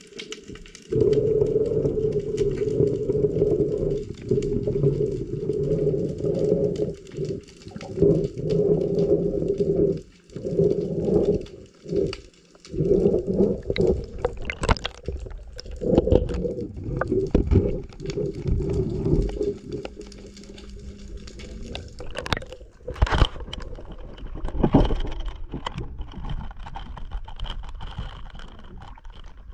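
Underwater sound picked up by a submerged camera: a loud, steady low hum that cuts in and out through the first two-thirds. Then a few splashes and water sloshing as the camera comes up out of the water.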